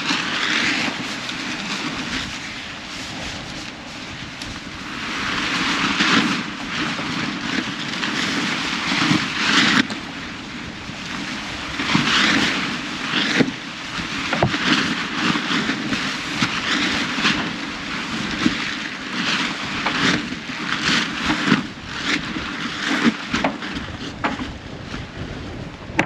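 Wind buffeting the microphone over the rush of water along the hulls of a Lagoon 450S sailing catamaran running fast in heavy seas, swelling every few seconds as waves pass, with short sharp knocks and slaps in the second half.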